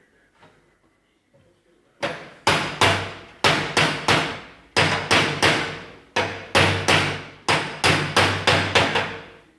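Hammer striking a metal part, a quick series of about eighteen blows, roughly two a second, starting about two seconds in, each blow ringing on briefly.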